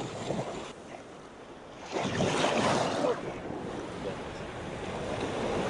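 Shallow sea surf washing and foaming around a wader's legs, with a louder wash about two seconds in that lasts about a second.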